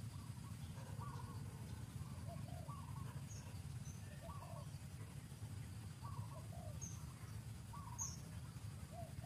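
A bird calling over and over outdoors: a short rising call repeated roughly every one and a half seconds, with a few faint high chirps and a steady low rumble underneath.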